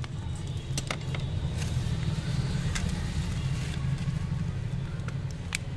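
Steady low background hum with a scattering of small, sharp clicks and taps as a mobile phone and its parts are handled.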